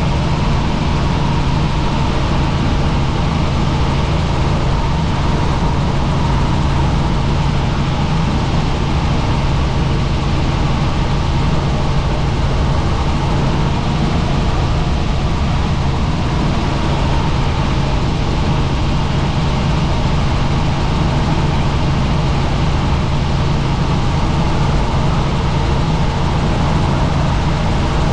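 Helicopter in steady flight: a loud, unchanging drone of engine and rotors with a strong low hum.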